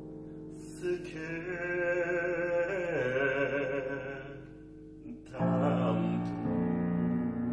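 Male fado singer holding a long, wavering sung phrase over piano accompaniment. The voice drops in pitch about three seconds in and fades. Firm piano chords enter about five and a half seconds in.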